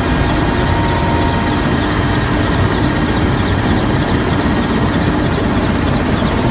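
Helicopter engine and rotor noise heard from inside the cabin: a loud, steady drone with a few faint steady tones above it.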